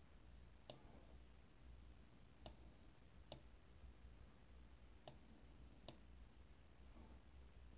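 Faint, sharp clicks of a computer mouse, about five of them at irregular intervals, over near-silent room tone.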